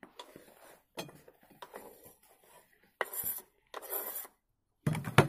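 A knife scraping along a wooden cutting board, with dishes clinking: a few short scraping strokes, then a louder knock near the end.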